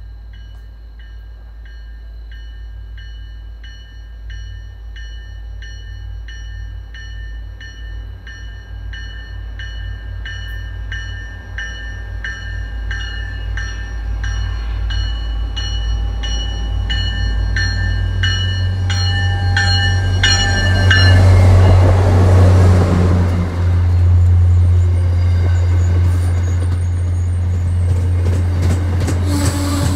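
MBTA commuter train approaching, its bell ringing evenly a bit faster than once a second and growing louder as it nears. About twenty seconds in the train reaches the platform and the rush and rumble of its bi-level coaches on the rails takes over, over a deep diesel drone.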